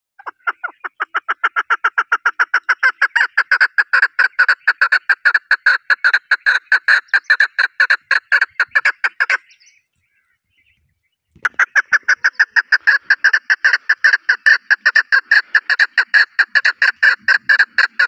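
Chukar partridge calling: a long run of loud, evenly repeated clucking notes at about five a second, building up over the first second or so. The calling breaks off about nine seconds in and starts again after a pause of about two seconds.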